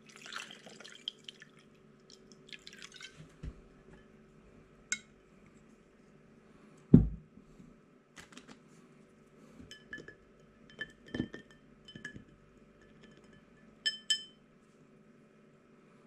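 Whisky poured over a ball of ice in a glass tumbler, splashing in two short pours in the first few seconds. A loud thump comes about seven seconds in, then a string of small ringing glassy pings and clicks as the ice cracks and settles in the liquor.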